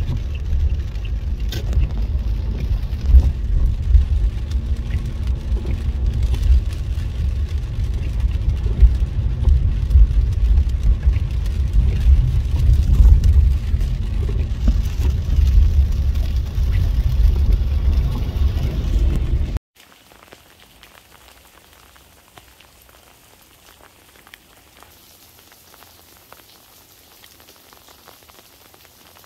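A loud, uneven low rumble, then an abrupt cut about two-thirds of the way in to a quiet, fine pattering of freezing rain.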